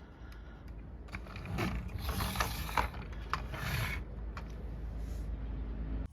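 Plastic clicks and rattles from a vintage G.I. Joe Snowcat toy vehicle being handled and moved, with scattered sharp clicks over rustling. The sound cuts off abruptly at the end.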